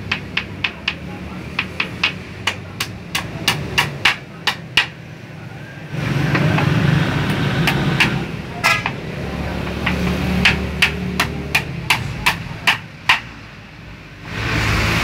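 Hammer driving nails into a pallet-wood table frame: runs of quick, sharp strikes, about three a second, during the first five seconds and again from about ten to thirteen seconds. A steady low hum lies under the gap between the runs.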